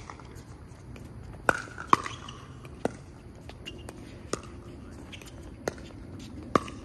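Pickleball paddles striking a plastic pickleball in a fast volley exchange: about six sharp pops, some with a brief ring.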